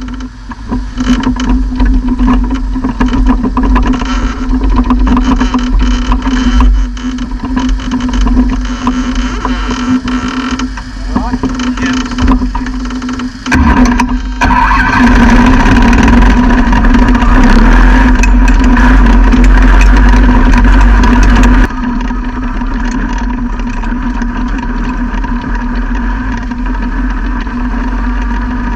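Sprint car V8 engine running at a steady speed, heard on board. About 14 seconds in it turns abruptly louder and harsher, then drops back suddenly about 22 seconds in.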